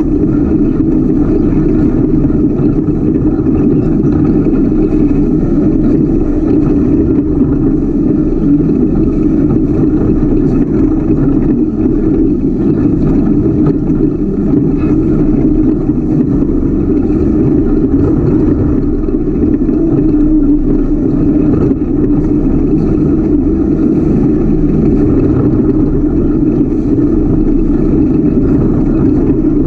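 Ultra4 off-road race car's engine running steadily while driving a rocky trail, heard from on board the car.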